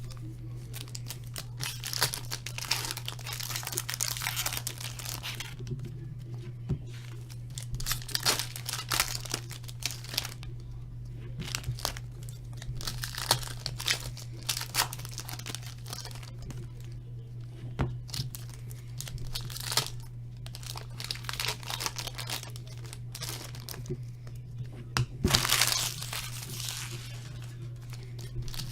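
Hockey card pack wrappers being torn open and crinkled, in irregular bursts of crackling with the loudest about three-quarters of the way through, over a steady low electrical hum.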